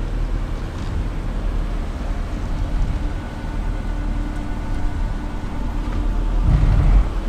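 Ram 1500 Classic pickup's engine running low and slow as the truck crawls down a steep rock slope, a steady low rumble that grows louder near the end.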